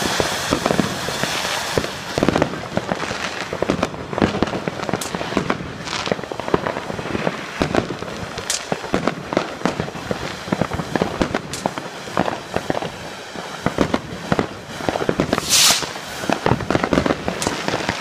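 Fireworks going off: a dense, irregular run of cracks and bangs, with a brief loud hiss near the end.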